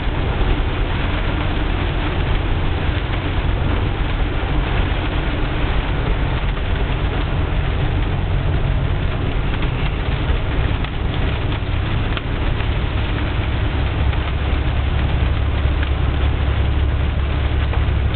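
Very heavy rain falling, a steady dense hiss, with a low rumble underneath that grows stronger about two-thirds of the way through.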